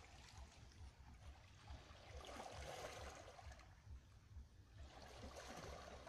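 Small waves washing over shoreline rocks, faint, swelling twice: about two seconds in and again near the end, over a low, unsteady rumble.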